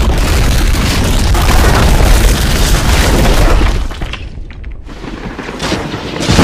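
Explosion sound effect: a loud, deep rumbling boom for about four seconds. It eases off, then builds again into another blast at the very end.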